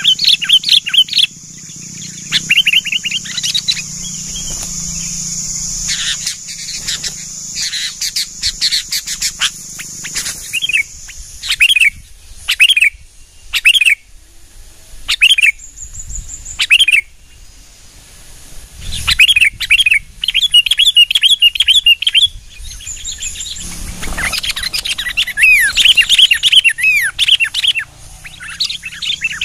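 Sooty-headed bulbuls calling: quick, bubbly chirping phrases in repeated bursts with short gaps between them. A steady high-pitched buzz runs underneath for about the first third and returns briefly near the end.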